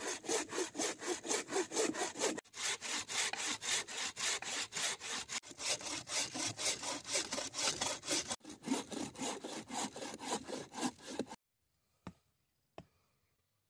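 Wooden-framed bucksaw cutting through a log, its thin blade rasping in a quick, even back-and-forth rhythm of about four strokes a second with two brief breaks. The sawing stops near the end, and two short knocks follow.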